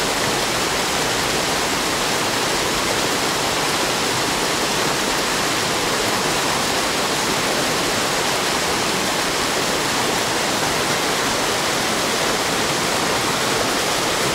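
Fast mountain river rushing, a steady, unbroken rush of water.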